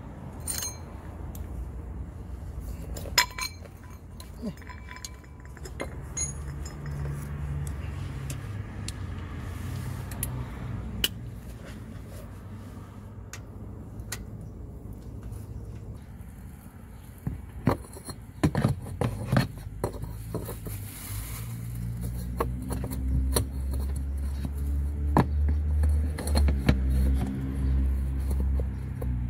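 Scattered metallic clinks and knocks of hand tools, a socket wrench and loose sockets, against each other and the car's underside during an oil change. A low rumble builds in the last few seconds.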